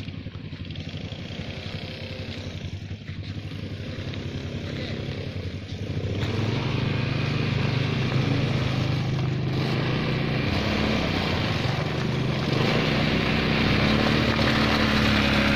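Quad bike (ATV) engine running as it rides over a gravel track, getting louder about six seconds in as it comes closer.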